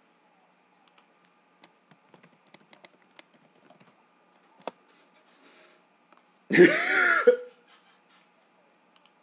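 Computer keyboard typing: scattered light key clicks for the first few seconds, then one sharper click. About six and a half seconds in, a short, loud vocal sound from a person, under a second long.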